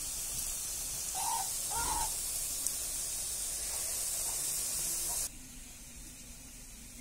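Hot oil sizzling steadily as lentil fritters fry, cutting off suddenly about five seconds in. Two short bird calls come about one and two seconds in.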